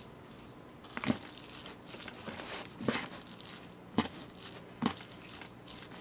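Bibimbap being stirred in a plastic takeout container: four sharp knocks of the utensil against the container, roughly a second apart, over soft rustling of the rice being mixed.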